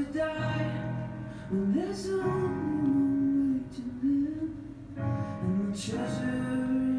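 A slow song: a singing voice holds long notes that slide from one pitch to the next, over a quiet instrumental accompaniment.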